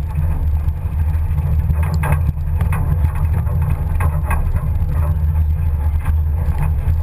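Pinzgauer off-road vehicle's engine and drivetrain running steadily under way, a deep, even drone heard from the open rear bed, with scattered knocks and rattles from the truck bouncing over a rough woodland track.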